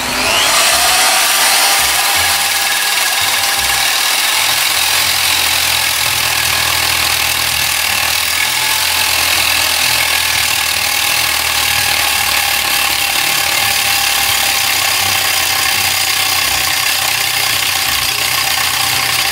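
Electric drill converted into a cutter with a cutting disc, running at full speed and grinding through a thick iron bar. A steady high whine with hiss that starts sharply and stops at the end of the cut.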